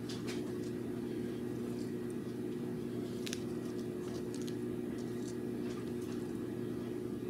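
Steady low hum of shop room tone, made of a few steady pitches, with a few faint light clicks scattered through it, one a little clearer about three seconds in.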